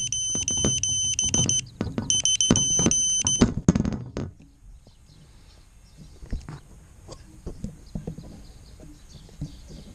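Electronic beeper sounding in quick pulses, in two runs with a short break, stopping about three and a half seconds in, over handling knocks and thumps. After that only faint clicks and rustling remain.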